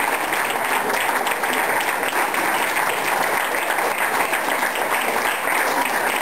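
Audience applauding: many hands clapping, steady and even.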